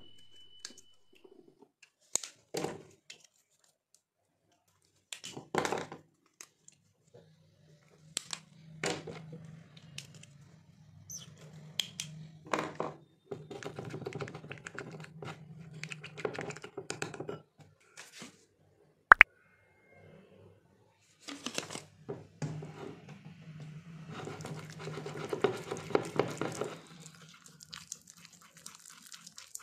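Slime-making: small food-colouring bottles handled and white glue mixed in a glass bowl. Scattered clicks and taps, with longer stretches of sticky, crinkly mixing noise, and one sharp click near the middle.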